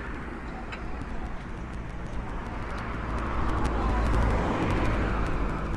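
A road vehicle passing, its low rumble swelling to its loudest about four seconds in and then easing off.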